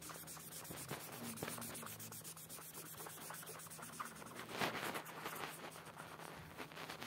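Green felt-tip marker scribbling on paper in quick back-and-forth strokes as an area is coloured in, with a louder burst of strokes about four and a half seconds in.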